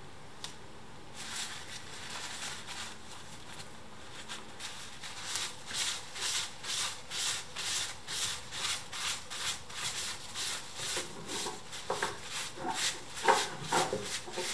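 A cloth rubbed back and forth over a wooden screwdriver handle, in quick regular strokes about two a second, growing louder near the end.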